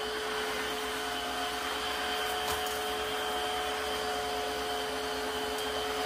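Dreame H11 cordless wet-dry vacuum-mop running steadily: an even motor hum and whine with a couple of steady pitched tones over airflow noise.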